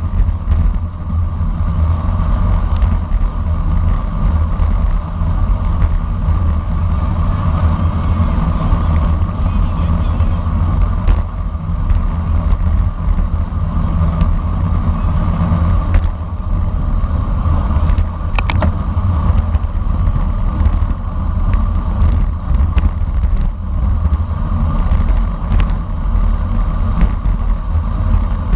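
Steady wind rumble on a camera microphone riding in a bicycle road race, with a constant hum and scattered short clicks.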